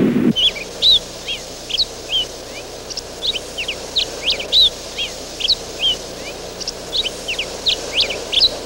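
Small birds chirping: many short, high chirps and quick rising and falling sweeps, several a second and overlapping. A low rushing noise cuts off just after the start.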